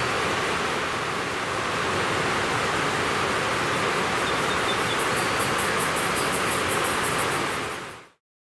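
Steady, even outdoor noise with a fast run of high ticking from about five to seven seconds in; it fades out to silence near the end.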